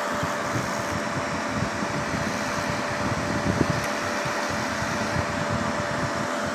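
Resanta SAI-250K inverter welding machine powered up with no load after replacing its burnt transistors, its cooling fan running steadily with a faint steady whine.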